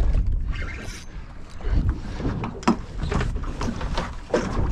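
Wind rumbling on the microphone aboard a small boat at sea, with water slapping the hull and a few sharp knocks in the second half.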